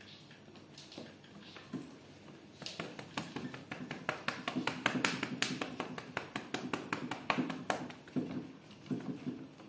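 A hand patting and lightly slapping a cat's back and rump, a quick run of soft slaps at about five a second that starts about a third of the way in.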